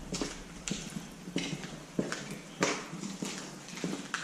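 Footsteps of people walking across a hard floor, a regular step about every two-thirds of a second.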